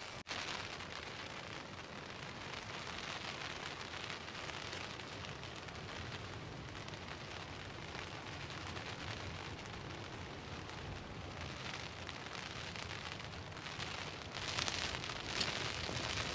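Strong wind rushing and buffeting the microphone, growing louder near the end.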